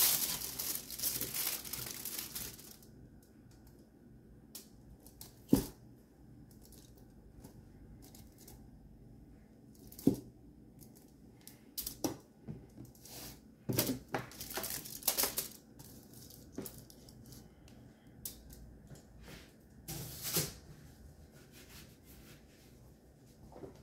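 Aluminium foil crinkling and rustling under hands for the first couple of seconds, then scattered light knocks and foil rustles.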